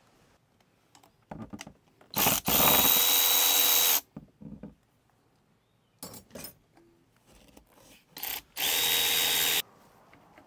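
Power drill running in two steady bursts, the first about two seconds long and the second about one, each started with a short blip or two of the trigger, backing out fasteners. A few short knocks of tools on metal come between the runs.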